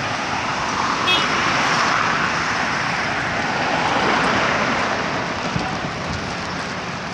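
City road traffic: cars and motorcycles passing, a steady rush of engines and tyres, with one vehicle passing close by about four seconds in, its sound falling in pitch as it goes.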